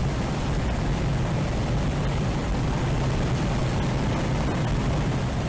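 Inside the cabin of a VW MK8 Golf at full throttle in fifth gear, its turbocharged four-cylinder holds a steady drone at about 5,200–5,500 rpm, under heavy wind and road noise at roughly 130 mph.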